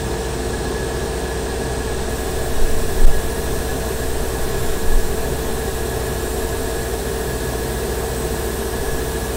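Airbrush rig running steadily as primer is sprayed onto a plastic model part: a constant motor hum under a hiss of air. A soft knock about three seconds in.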